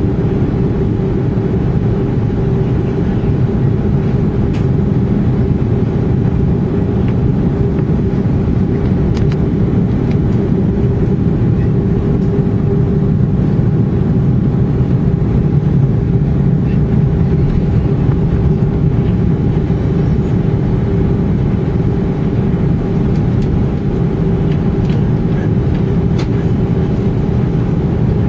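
Airbus A320 heard from inside the passenger cabin while taxiing: a steady engine hum and rumble with two steady tones running through it.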